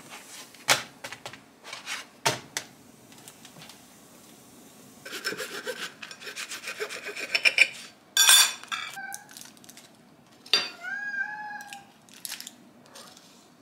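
A table knife sawing through a cooked flatbread on a ceramic plate: rasping back-and-forth strokes, with the blade squeaking against the plate a few times. Several sharp clicks and knocks of utensils come first.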